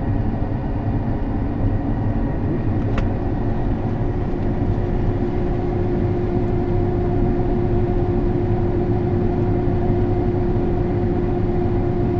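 Harvest machinery engine running steadily with a low hum. A steady whine comes in about four seconds in, and there is a single sharp click about three seconds in.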